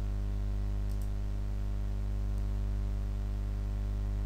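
Steady electrical mains hum with its stacked overtones and a hiss floor from the recording chain. A faint double click, a computer mouse clicking, comes about a second in.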